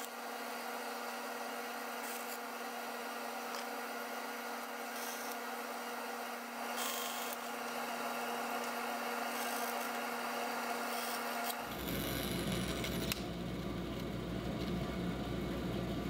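Bandsaw running with a steady hum while its blade cuts through cherry, finishing the dovetail waste cuts, with brief spells of hissing cutting noise. About twelve seconds in, the running sound changes abruptly to a lower, rougher note.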